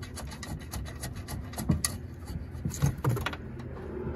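Scattered light clicks and taps with some rubbing as bare hands work the mirror's mounting nuts and washers inside the door's mirror mount. A few sharper clicks come about halfway through, over a steady low hum.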